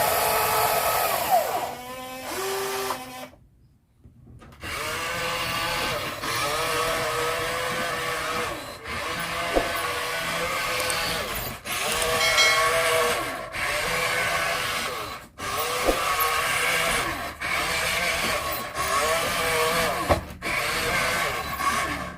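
Small electric gear motors of radio-controlled construction models whining as they run. The pitch bends up and down with the load, and the sound breaks off into short runs with sudden brief gaps between them.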